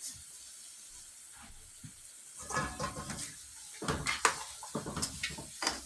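A pot of curry goat being uncovered and stirred: at first a faint steady hiss, then from about halfway a run of clanks and scrapes of a pot lid and spoon against the pot.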